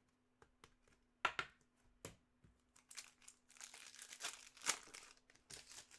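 Trading cards being handled: faint rustling and crinkling with scattered light clicks, busiest a little past halfway.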